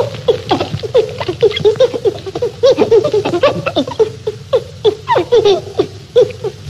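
Ape chattering: a long run of short, laugh-like grunting hoots, several a second.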